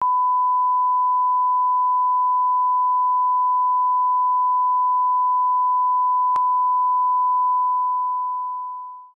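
Broadcast line-up test tone: a steady 1 kHz sine tone played with colour bars, the reference used to set audio levels. It holds one unchanging pitch, with a faint click about six seconds in, and fades out over the last second and a half.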